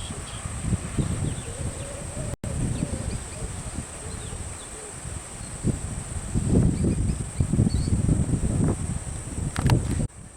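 Steady high-pitched drone of insects, with irregular low rumbling bumps over it that grow loudest in the second half.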